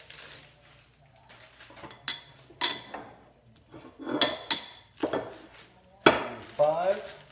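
Solid 6061 aluminium bus bars clinking against one another as they are handled and set down on a stack. About six sharp metallic clinks with a short ring, starting about two seconds in.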